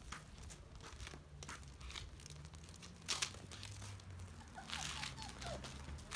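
Beagle puppies scampering on stone paving: scattered light clicks and rustles from their paws, with a sharper double click about three seconds in.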